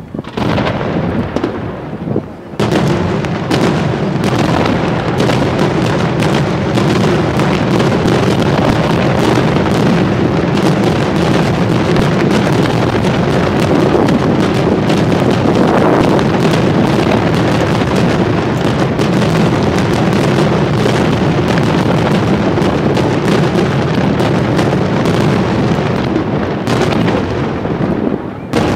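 Fireworks display: after a brief lull, a dense, unbroken barrage of shell bursts and bangs starts about two and a half seconds in and keeps going almost to the end.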